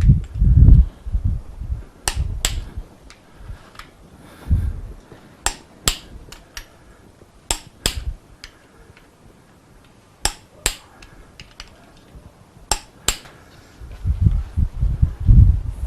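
Torque wrench tightening the big-end bolts of an MGB engine to 35–40 lb·ft: sharp metallic clicks in pairs, a pair every two to three seconds, with dull bumps of the work being handled at the start and near the end.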